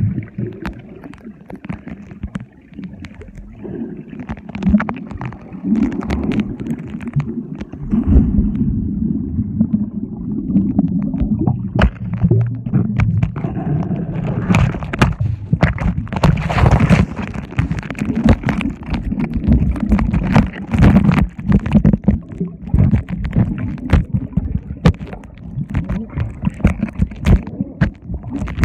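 Muffled underwater noise from a phone microphone submerged in water: gurgling and sloshing with many sharp knocks and clicks, the sound dull and low.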